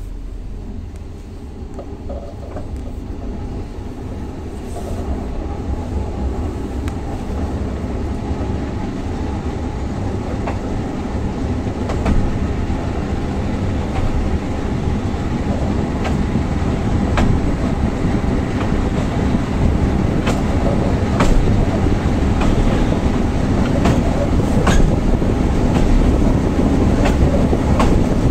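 MÁV Bzmot diesel railbus running along the line: a steady low engine and running drone, with wheels clicking over rail joints now and then, growing gradually louder.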